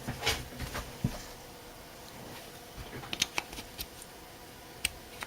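Small handling noises of a battery cell being swapped into a camera: light rustling and small clicks, with a quick run of sharp clicks about three seconds in and one more click near the end.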